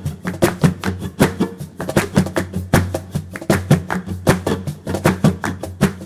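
Background music: a fast, even run of percussion strikes over a steady low bass.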